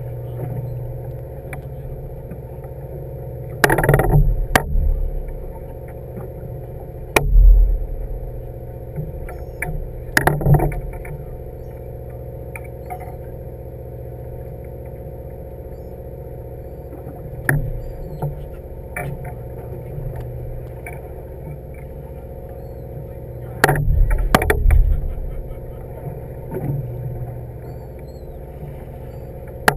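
Fishing boat's engine running steadily in a low drone, broken by several loud bursts of rumbling noise about four, seven, ten and twenty-four seconds in.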